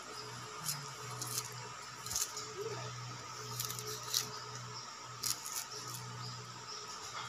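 Kitchen knife slicing through pineapple pieces held in the hand over a plastic bowl: a string of short, crisp cuts at irregular intervals, over a steady low hum.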